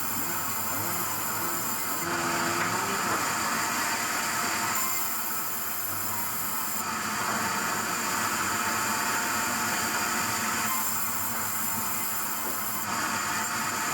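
Sawmill machinery running and cutting wood: a steady, loud hiss with a high whine. The sound changes abruptly every two to four seconds.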